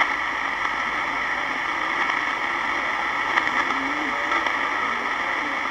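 Homebrew NE602 direct-conversion 20-metre receiver playing steady band-noise hiss through its speaker, with a faint wavering signal underneath and no clear voice.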